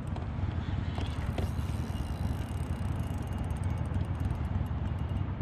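Steady low rumble, with a couple of faint ticks about a second in.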